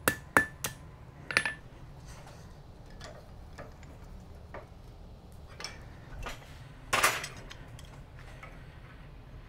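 Blacksmith's hammer striking hot rebar on an anvil: three quick ringing blows at the start and one more about a second later. Then scattered light metal clinks, and a louder clatter about seven seconds in as the piece is handled in a bench vise.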